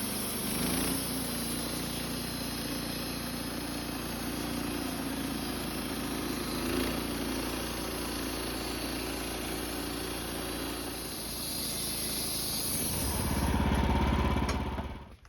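Woodmizer LT15 band sawmill running steadily as its band blade saws through an alder log, with a steady hum and a high whine; the sound grows louder near the end.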